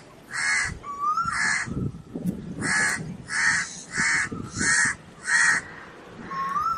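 A crow cawing repeatedly: about seven short, harsh caws in a loose series, the last about five and a half seconds in.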